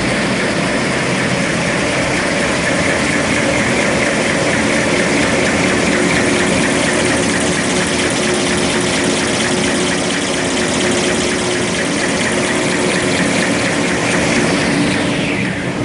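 Kitchen towel paper rewinding line running: a loud, steady mechanical clatter and hum of rollers and drives, with a falling whine near the end.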